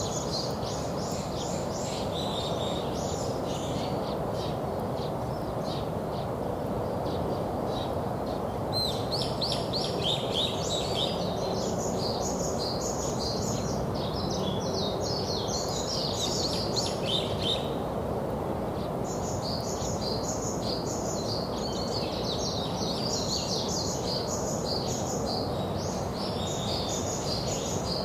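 Small songbirds chirping in quick, busy bouts that pause now and then, over a steady background noise.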